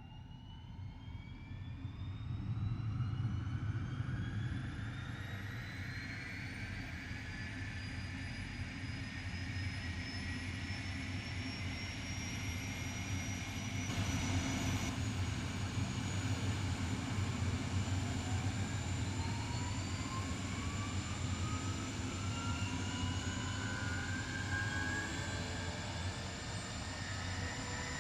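Pratt & Whitney Canada PT6T-3 Twin-Pac turboshaft of a Sikorsky S-58ET helicopter starting up: a turbine whine that rises steadily in pitch over a low steady hum, growing louder over the first few seconds, with a second whine starting to climb about halfway through.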